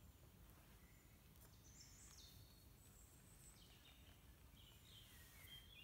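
Near silence with faint birdsong: a few short, high chirps and whistles scattered through the quiet.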